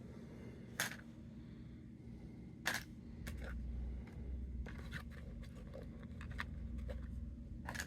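Scattered small clicks and light handling noise as small plastic Lego minifigure parts are handled, with a faint low rumble underneath for a few seconds.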